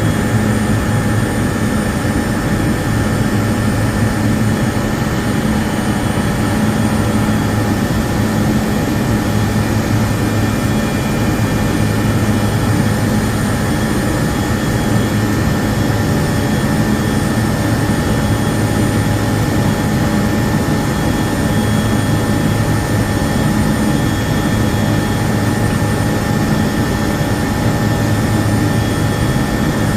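Industrial air compressor running steadily, a loud even drone with a strong low hum, kept running while grease is pumped into it.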